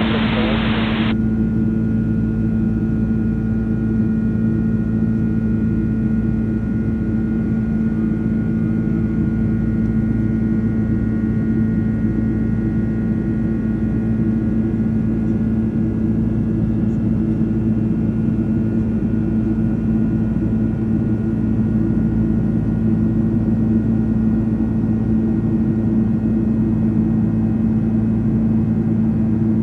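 Steady in-flight cabin drone of a Boeing 767-300ER: jet engine and airflow noise with a low, even hum of several steady tones. About a second in, a burst of radio static from the air-band receiver cuts off.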